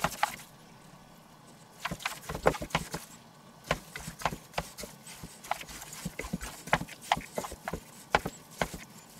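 Raw seasoned meat chunks being kneaded and squeezed by gloved hands in a stainless steel bowl, with flour being worked in: irregular sharp smacking clicks, pausing for about a second and a half near the start.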